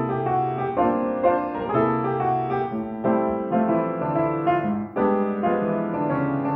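Intro music played on a keyboard instrument: a gentle run of piano-like notes and chords changing about every half second, with a brief pause about five seconds in.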